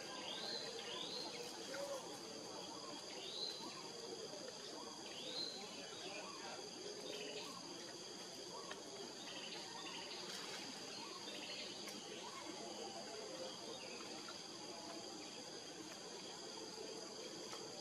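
Steady high-pitched drone of insects, several constant tones at once, over forest ambience, with a few short chirping calls in the first six seconds.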